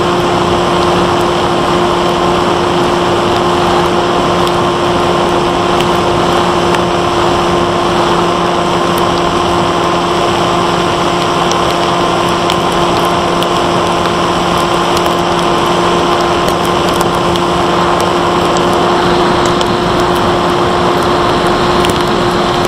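Brushless electric motor and propeller of a Bixler 1.1 FPV foam plane (Turnigy 2826-6 motor, 8x3.4 prop) running steadily at an even, unchanging pitch, heard from the camera on board, under a steady rush of air noise.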